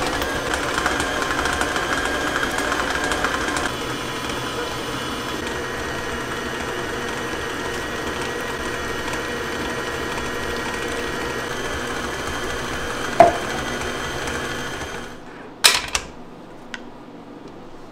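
Small electric motor running steadily, with a sharp click about thirteen seconds in. It shuts off about fifteen seconds in, followed by a few sharp clacks.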